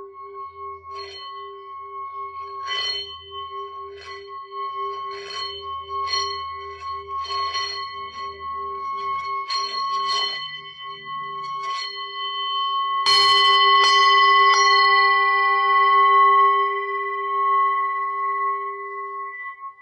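Singing bowls: one bowl sounds a steady, pulsing low tone while light strokes ring out about once a second. About 13 seconds in, a much louder strike brings in many bright overtones that slowly die away, and the low pulsing tone stops just before the end.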